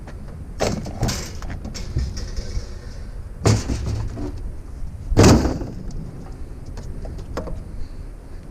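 A few clunks and knocks as items are handled, then a heavy vehicle door slammed shut about five seconds in, over a low steady rumble.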